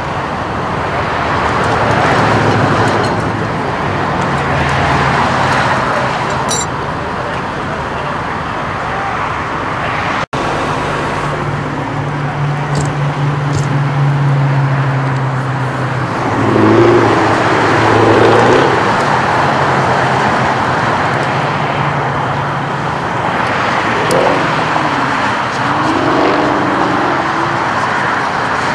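Steady freeway traffic noise with the low, even hum of an idling engine underneath. The sound drops out for an instant about ten seconds in.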